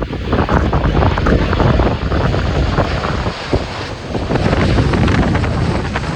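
Strong wind buffeting the microphone over the low rumble of a Boeing 737-800's CFM56 jet engines on landing approach.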